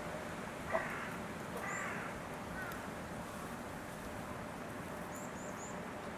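Two short, harsh animal calls about a second apart, each with a falling pitch, preceded by a sharp click. Faint, high chirps of small birds follow three times in quick succession later on.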